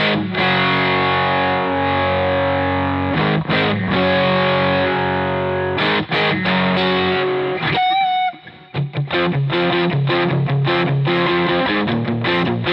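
Godin A6 hybrid guitar played through its piezo pickup into an overdriven amp: ringing distorted chords, a short break about eight seconds in, then quick rhythmic strumming.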